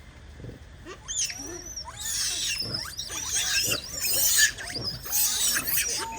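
A group of macaques giving many overlapping high-pitched calls whose pitch rises and falls. The calls begin about a second in and grow louder from about two seconds.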